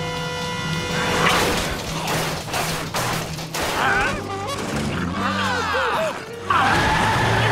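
Cartoon soundtrack: background music with a crash and clatter as a rope net drops over a truck, followed by a run of rising and falling swoops and whoops that swell louder near the end.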